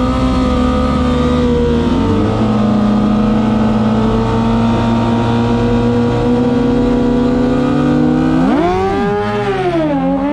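Two drag-racing sport bikes held at steady high revs on the start line, then launching about eight seconds in. The engine pitch climbs sharply, drops at a gear change near the end and climbs again.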